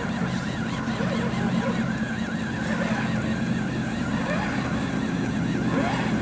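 Electric motor and gear drive of an RC scale crawler truck whining steadily as it crawls up a loose gravel slope, with a wavering higher-pitched sound over it.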